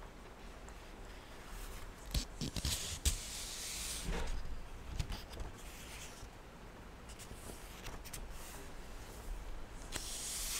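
Paperback book pages being leafed through and handled close to a microphone: scattered soft paper rustles and swishes, with a few light clicks and taps.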